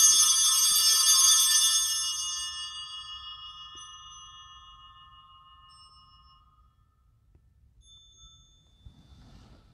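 Altar bells rung for about two seconds, then left to ring out and fade over several seconds, marking the elevation of the consecrated host at Mass.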